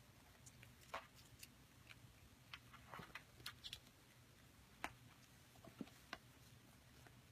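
Kittens making faint, irregular little clicks and taps as they move about, over a low steady hum.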